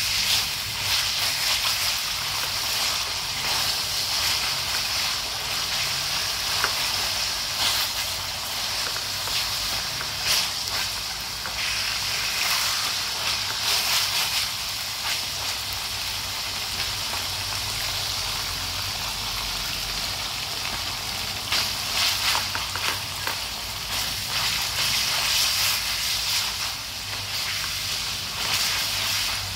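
Lemongrass-coated pork cutlets sizzling steadily as they pan-fry in hot oil, with scattered crackles and spatters, while chopsticks turn the pieces in the metal pan.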